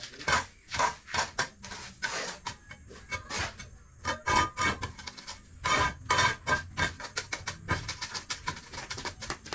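A mason's steel trowel tapping and scraping on concrete hollow blocks and mortar: a run of irregular sharp clinks and knocks, several a second, some with a brief metallic ring.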